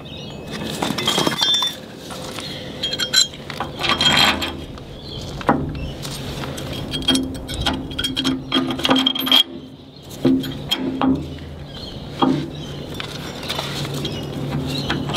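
Irregular light metal clinks and scrapes as a bolt-on anode, its bolt and nuts are handled and fitted against a steel keel.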